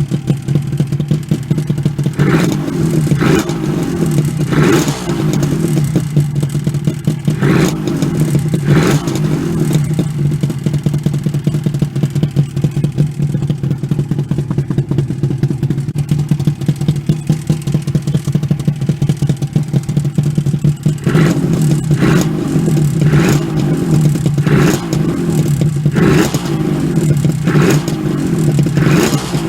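Suzuki RG250 Gamma's two-stroke parallel-twin engine running at idle through its stock silencer, blipped briefly on the throttle several times in the first nine seconds. It then idles steadily for about twelve seconds, and a quick run of blips follows near the end.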